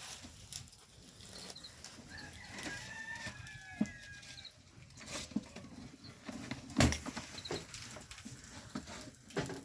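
Chicken calling, with a drawn-out, wavering call about three seconds in. Scattered knocks and thumps sound around it, the loudest about seven seconds in.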